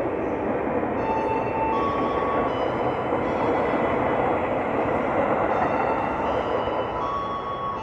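KRL Commuterline electric train running past close by: a steady rumble and rush from the cars and wheels, with a faint electric whine that steps up and down in pitch a few times.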